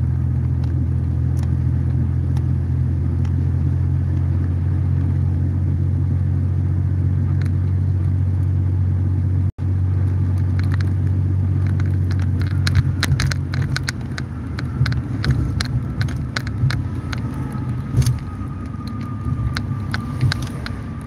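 Car cabin noise while driving: a steady low engine and road rumble. About halfway through the sound drops out for an instant, and the rumble comes back less even, with scattered clicks and ticks over it.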